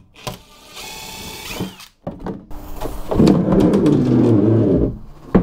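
A cordless drill-driver whirring for about a second as it backs out screws. Then come a few clicks and knocks, and a loud rough scraping from a panel being worked loose.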